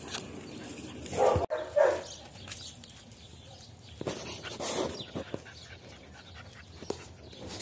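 A dog barking: two loud barks a little over a second in, then fainter, scattered sounds.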